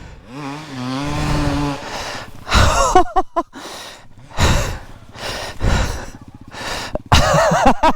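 A dirt bike rider breathing hard through the mud section, with heavy panting breaths about every second and a half. A motorcycle engine note runs through the first two seconds.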